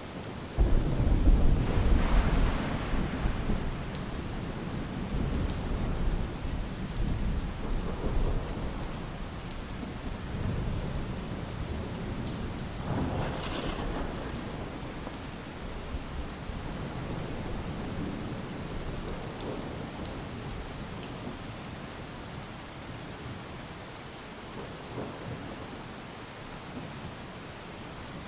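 Steady rain with a thunderclap about a second in, loud at first and rumbling on as it slowly fades, and a smaller rumble of thunder around the middle.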